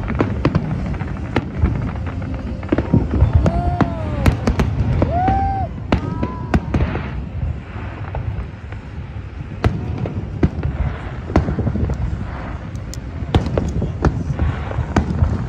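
Fireworks display going off: a dense run of sharp cracks and pops over a low rumble of booms, with a couple of short rising-and-falling tones about four and five seconds in.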